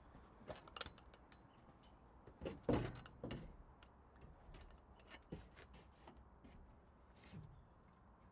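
A large plywood sheet being handled and pressed against a timber stud frame: scattered knocks and scrapes of wood on wood, the loudest about two and a half seconds in, then a few fainter knocks.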